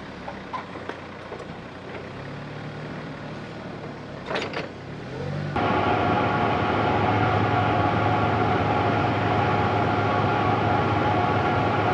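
A forklift runs in a hangar bay with a low hum and scattered clicks and knocks. About five and a half seconds in, this cuts abruptly to a louder, steady rushing noise with several steady hums underneath.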